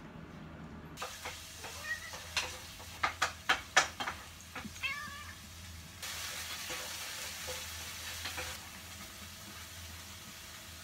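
A cat meowing briefly a couple of times, about five seconds in, after several sharp knocks and clicks. A steady hiss follows for a couple of seconds.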